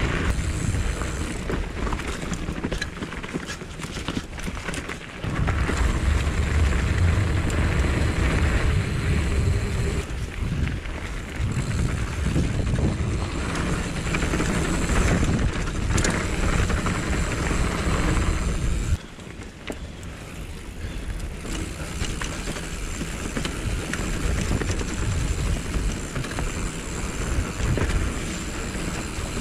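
Mountain bike riding over a dirt forest trail, heard on the action camera's microphone: wind rumble over the mic with tyre noise and frequent short knocks and rattles from the bike over bumps. The wind rumble is heaviest for much of the first two thirds and drops away suddenly about 19 seconds in.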